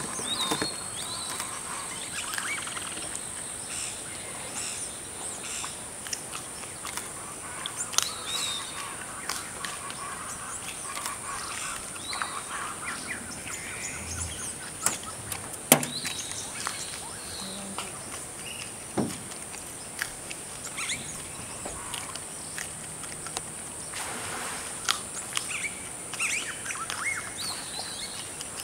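Wild outdoor ambience: birds chirping and calling on and off over a steady high-pitched insect drone. Scattered sharp clicks and snaps stand out, the loudest about 8 and 16 seconds in.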